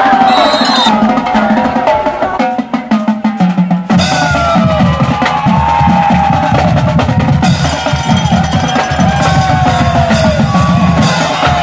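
Music with a drum kit and a gliding melodic lead; a fuller beat with heavy bass comes in about four seconds in.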